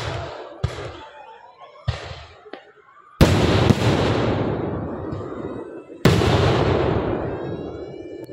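Fireworks bursting: four sharp bangs in the first few seconds, then two much louder shell bursts, about three seconds apart, each followed by a long rumbling echo that slowly fades.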